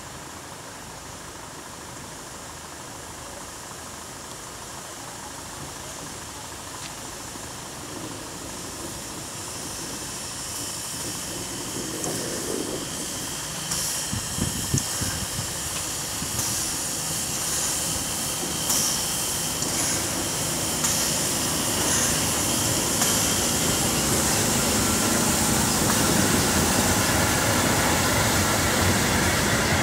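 Steam train hauled by the former Swedish SJ S1 locomotive no. 1916 approaching and passing: steam hissing and the train's running noise grow steadily louder, with a few sharp knocks from about halfway, then wheels rolling over the rails as the coaches go by near the end.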